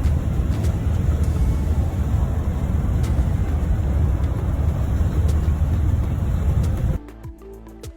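Steady low rumble of a moving road vehicle. It cuts off abruptly about seven seconds in, giving way to music.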